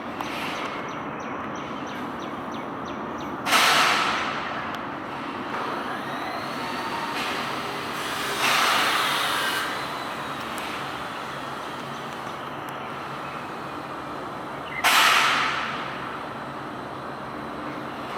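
Road traffic going by: three loud vehicle pass-bys that start suddenly and fade over about a second each, over a steady traffic hum.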